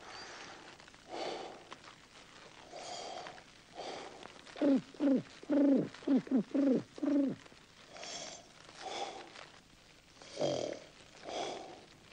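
Slow, rhythmic snoring breaths of the sleeping bear. A quick run of about seven short falling notes in the middle is the loudest sound.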